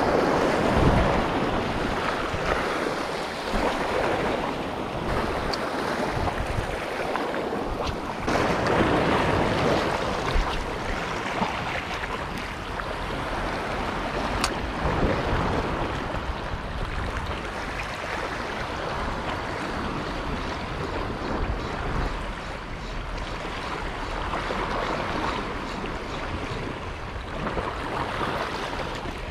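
Sea waves washing and breaking against shoreline rocks, swelling louder about a second in and again around eight to ten seconds in, with wind buffeting the microphone.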